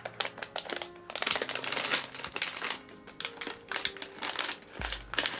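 Crinkly plastic sweet packet being opened and handled, crackling in repeated bursts.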